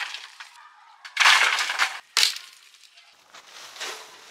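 Dry sticks, twigs and leaf litter crunching and crackling as firewood is handled and laid down, in three bursts: a long one about a second in, a sharp one just after two seconds, and a softer one near the end.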